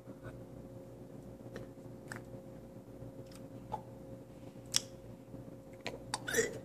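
Quiet room with a steady low hum and scattered faint clicks of small handling at the table. A sharper click comes near the middle, and a quick flurry of clicks with a short rising sound comes near the end.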